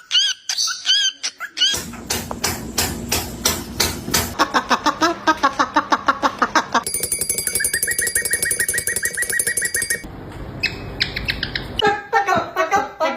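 Pet parrots calling in a string of short clips. First come chirpy whistles, then rapid clicking, then rhythmic pitched pulses. In the middle a fast, even warbling trill over steady high tones sounds like an electronic noise being imitated, and chirps return near the end.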